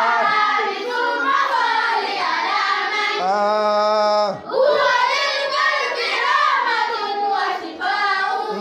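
Young voices singing an Arabic nasheed in praise of the Prophet, drawing out long notes that wind up and down in pitch, with a brief break about four and a half seconds in.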